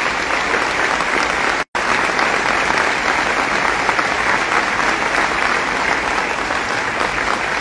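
Audience applauding steadily, a dense clatter of many hands clapping, cut off to silence for an instant about two seconds in.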